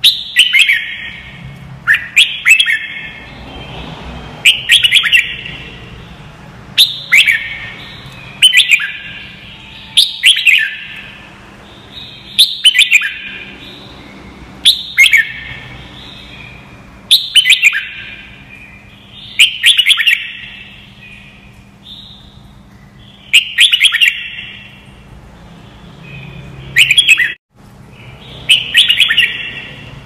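Red-whiskered bulbul singing: short, bright warbled phrases repeated roughly every two seconds.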